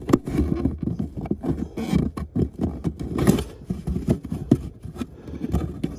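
Irregular plastic clicks, knocks and scrapes as a car's interior plastic access door is pushed and fitted back into place.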